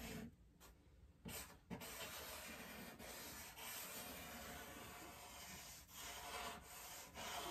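Charcoal rubbing and scratching across drawing paper during shading: faint, steady stroking with a brief pause near the start.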